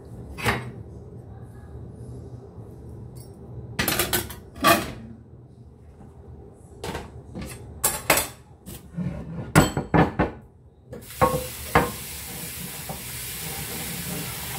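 Knocks and clinks of kitchenware being handled at a sink. About eleven seconds in, the tap comes on and water runs steadily into a frying pan being rinsed, with a few more knocks of the pan.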